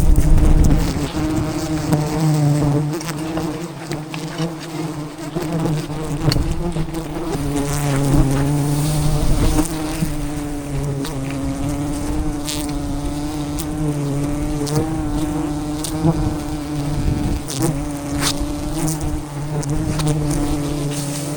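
A swarm of wild honeybees buzzing close by: a loud, steady drone whose pitch wavers slightly, with scattered clicks.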